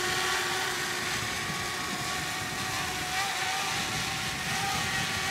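Small quadcopter drone flying overhead: a steady propeller whine whose pitch drifts slightly as it moves, over an even hiss.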